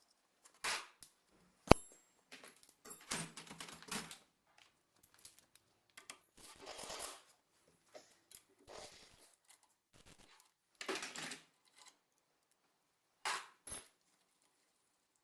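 Metal tools and engine parts being handled during engine disassembly: scattered clinks, scrapes and knocks with pauses between them, and one sharp metallic strike nearly two seconds in as the loudest sound.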